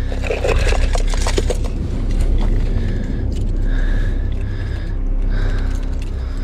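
Hard plastic fishing lures clattering and scraping against each other in a plastic tackle box as a gloved hand sorts through them, a quick run of clicks in the first second or two, then quieter handling over a steady low rumble.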